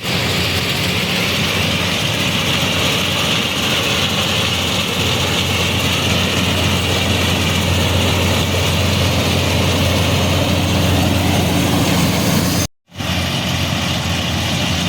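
Combine harvester running steadily while harvesting soybeans: a constant low engine hum with a broad hiss of machinery above it. The sound drops out for a moment near the end.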